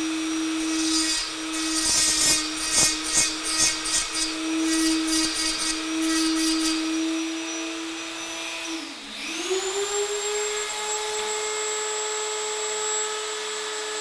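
Rotary tool with a small inverted-cone burr engraving antler: a steady high motor whine, with a run of short gritty rasps as the burr cuts in the first half. A little past halfway the motor speed dips briefly, then climbs and holds at a higher pitch.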